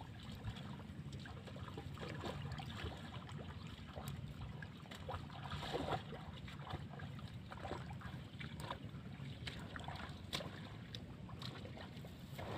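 Steady low wind rumble on the microphone, with faint scattered rustling and ticking, as of grass moving.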